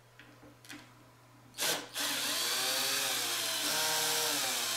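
Cordless drill-driver unscrewing a subwoofer driver's mounting screw. A short loud knock comes about a second and a half in, then the motor runs steadily from about two seconds in, its whine wavering slightly in pitch as the screw backs out.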